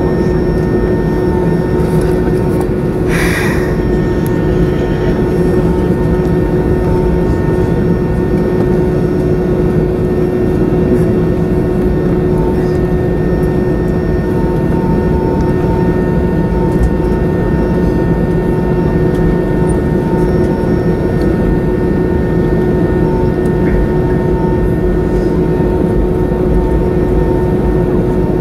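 Airliner cabin noise inside an Airbus A320neo taxiing: the steady rumble and hum of its Pratt & Whitney PW1100G geared turbofan engines at taxi power, with a few constant tones over it. A brief hiss about three seconds in.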